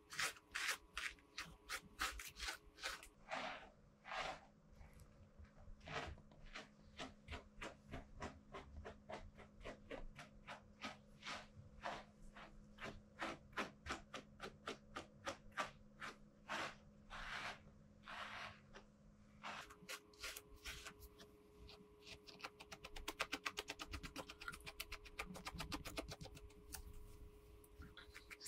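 A brush stroking through a Shih Tzu's long coat, with short rubbing strokes about twice a second that come quicker near the end. A faint steady hum sits under it through the middle.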